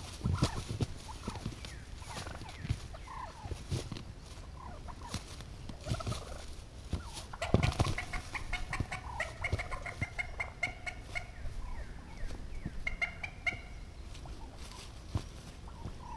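Wild turkey gobblers flogging a jake decoy in dry leaves: scattered thumps and wing slaps with rustling. A long rattling gobble comes about halfway through, and a shorter one follows a few seconds later.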